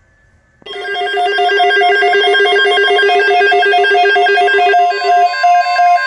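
Several NOAA weather alert radios sounding their alert tones together for a severe thunderstorm watch: a loud, layered mix of steady and beeping electronic tones that starts about two-thirds of a second in. The lowest tone drops out a little past five seconds in while the others keep going.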